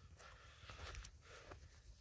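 Near silence: faint outdoor background with a low rumble and a couple of faint ticks.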